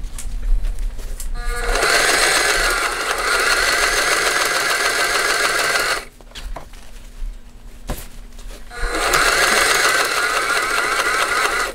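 Heavy-duty sewing machine stitching through layers of heavy cushion canvas: a steady run starting about two seconds in, a stop of about three seconds with a few small clicks, then a second run until the end.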